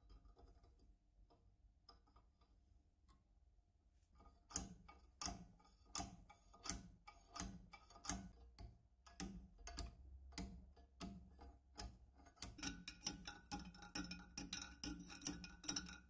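Metallic clicking from a rod being turned inside a steel tube: evenly spaced sharp clicks about every 0.7 s, starting some four seconds in, that come faster, about three a second, near the end.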